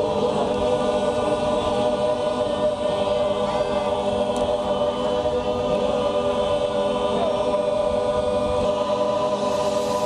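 Background music: choir-like voices holding long, steady chords.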